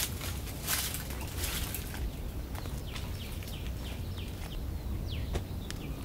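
Jackfruit bulbs and fibres being pulled apart by hand, with a couple of short rustling tears in the first two seconds and scattered small clicks. A bird calls through the middle in a quick series of short falling chirps.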